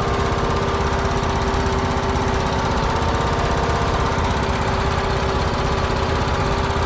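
Husqvarna lawn mower engine running steadily at a constant speed.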